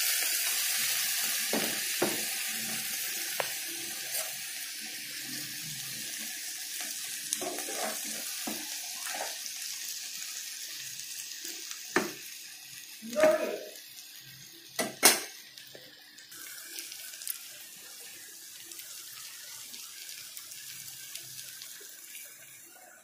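Hot pan of masala sizzling as boiled chana is tipped in; the hiss slowly dies away. A spoon knocks and scrapes against the pan several times, loudest about 12 to 15 seconds in.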